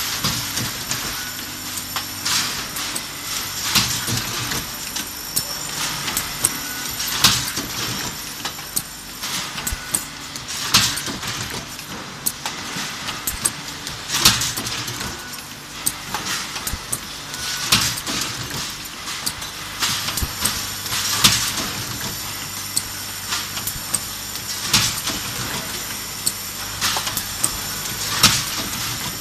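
Automatic handle-welding and hole-punching machine for metal containers running in production: a loud clank about every three and a half seconds as each cycle strikes, with smaller clicks and rattles of metal parts moving along the transfer in between, over a steady machine hum.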